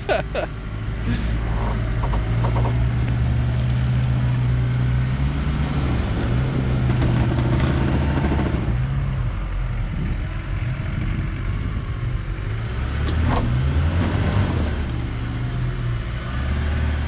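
Suzuki Jimny engine running as it is driven over rough off-road ground. The engine note rises and falls several times with the throttle.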